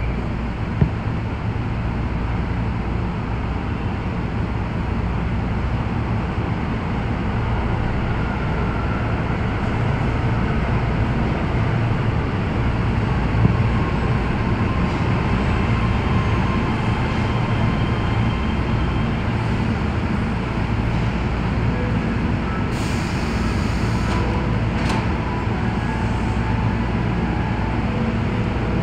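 Keio 7000 series electric train running, heard from inside the car: a steady rumble of wheels on rail with faint motor tones, a couple of single clicks, and a short hiss about 23 seconds in.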